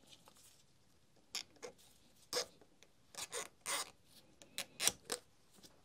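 A scattering of faint short clicks and scrapes from circlip pliers and a steel retaining ring against the metal barrel as the ring is worked into its groove.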